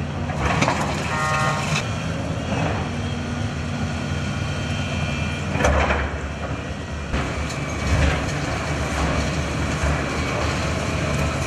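Heavy diesel construction machine running during a building demolition, with loud crashes of breaking debris about half a second in, near six seconds and near eight seconds. A deeper rumble follows the crash near six seconds, and a short high tone sounds about a second in.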